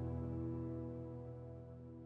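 Ambient background music: a held, sustained chord fading out.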